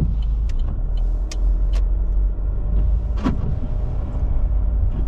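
A car driving, heard from inside the cabin: a steady low road and engine rumble with scattered sharp ticks, one louder about three seconds in.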